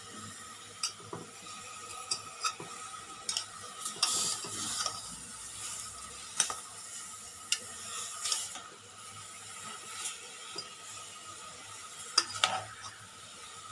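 A spoon stirring chunks of veal with onion, tomato and green pepper in a hot stainless-steel pot, clicking and scraping against the pot at irregular moments, over a steady sizzle from the high heat as the meat sears and the vegetables wilt.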